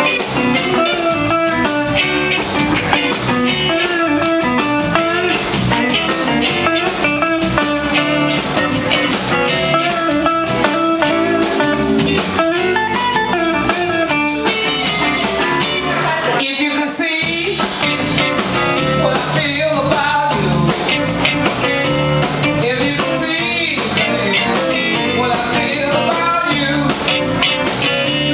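Live blues band playing: electric guitars, bass and drums, with a woman singing. The band stops for a moment about two-thirds of the way through, then comes back in.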